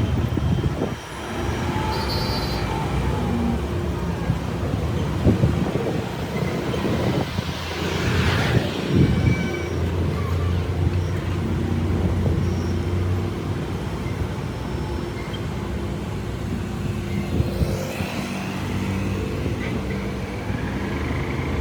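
Motor vehicle engines running amid road traffic: a steady low engine hum, with a louder rush of noise about eight seconds in.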